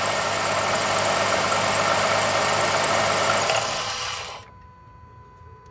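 2005 Jeep Liberty's 3.7-litre V6 running, with a grindy, rattly noise from the alternator pulley: bad bearings in the alternator. About four seconds in the sound drops off sharply, leaving only a faint low hum.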